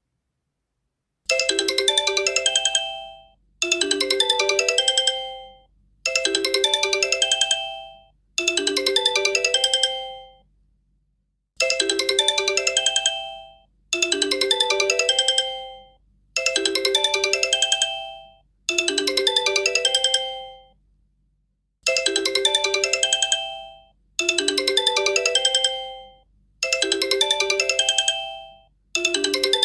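Incoming-call ringtone on an ESSGOO screen: a quick run of notes about two seconds long, repeating in groups of four with a short pause between groups.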